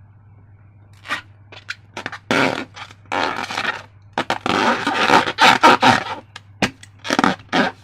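Hands working slime and balloon materials: a run of irregular scraping, squishing and rustling noises starting about a second in, some short and some longer, loudest near the middle.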